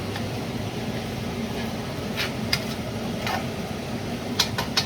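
A spatula stirring and scraping rice in a pan, with a few sharp taps and then a quick run of clicks against the pan near the end, over a steady low hum.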